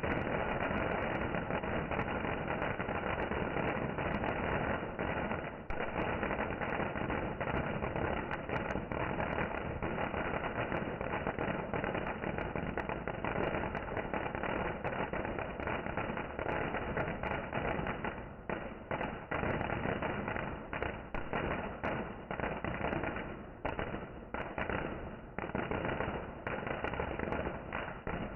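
Fireworks going off in a dense, continuous crackling barrage of many overlapping bangs. It breaks up into more separate bangs with short gaps in the last third.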